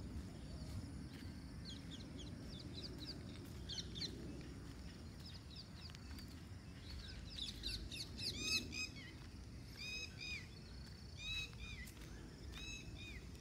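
Small birds chirping in short, arching notes, a few at a time at first and busier through the second half, over a low outdoor background rumble.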